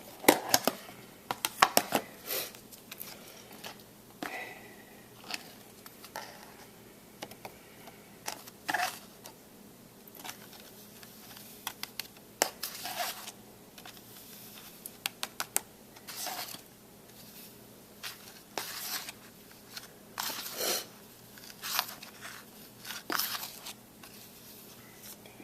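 Embossing powder being applied to a stamped paper strip: scattered sharp clicks and taps with short papery crinkling and rustling as the paper and powder jar are handled and the excess powder is tapped off.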